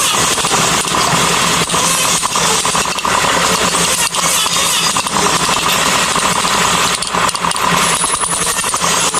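A power tool's motor running steadily under load, a loud rough noise with a faint hum and many small ticks.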